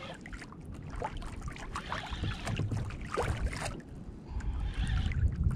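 Irregular small knocks and clicks from a sit-on-top fishing kayak and the angler's tackle, over a low rumble of wind and water on the microphone.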